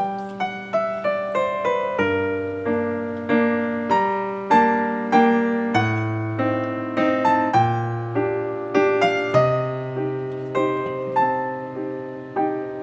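Background piano music: a gentle melody of single notes over held bass notes.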